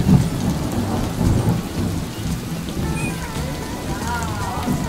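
Rain-and-thunder sound effect: steady rain with low thunder underneath.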